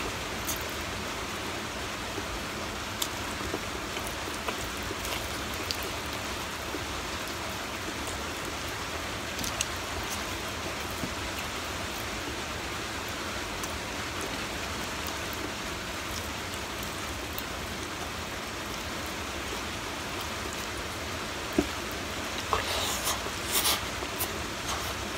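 Steady hiss of background noise, with faint scattered clicks from eating with the fingers and a short run of sharper mouth and chewing clicks near the end.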